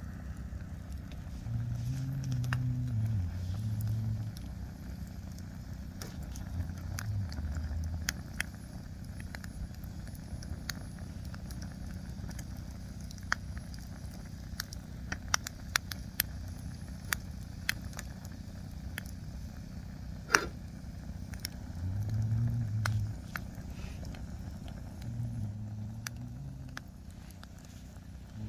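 Firewood burning in an open fire, crackling with scattered sharp pops and one louder pop about twenty seconds in. A low rumble swells and fades several times underneath.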